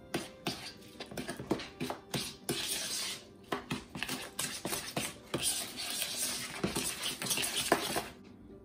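A spoon mixing a thick paste of butter, brown sugar and cinnamon in a bowl, with quick, irregular scrapes and clinks against the bowl. It stops abruptly near the end.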